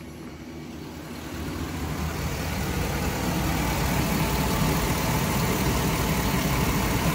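2010 Chevrolet Express 2500's 4.8-litre V8 idling steadily on new spark plugs and ignition wires, heard through the open doghouse inside the cab; it grows louder over the first few seconds as the engine bay is approached.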